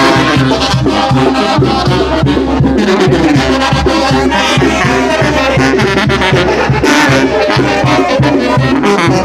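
Oaxacan brass band playing loud, lively dance music, with the bass pulsing on a steady beat under sustained horn lines.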